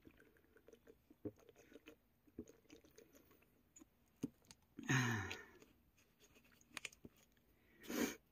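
Someone drinking water from a bottle: faint small clicks and swallows, with a louder breathy sound falling in pitch about five seconds in and a shorter one near the end.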